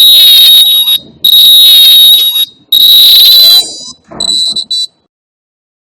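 Buzzer driven by an Arduino Uno sounding a programmed alarm tone: a loud, high, steady beep repeated three times, each about a second long, then a shorter, fainter burst before it stops.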